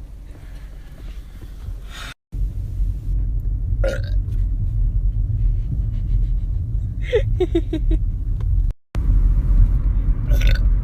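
A person burping: a short croaky burp of several quick pulses about seven seconds in, over a loud steady low drone.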